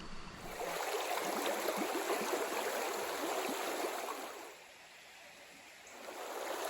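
Creek water running steadily over a riffle. It dips much quieter for about a second and a half past the middle, then comes back.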